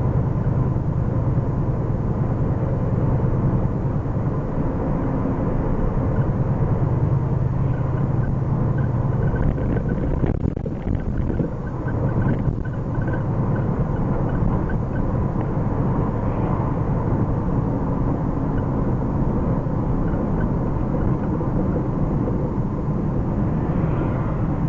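1979 Ford Mustang's engine and road noise heard from inside the cabin while driving, with a brief easing of the engine about halfway through. The engine is still being broken in.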